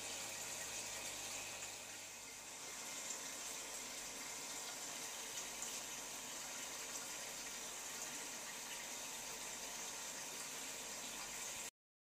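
Steady hiss of running water, which cuts off suddenly near the end.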